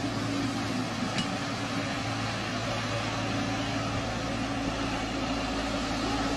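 Heavy-equipment diesel engine running steadily, a constant hum.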